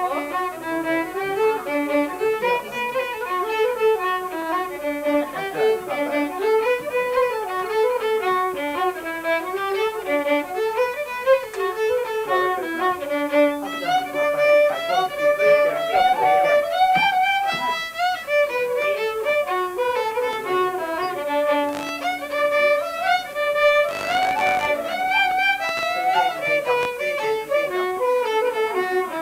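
Fiddle playing an Irish dance tune in a quick, continuous run of notes.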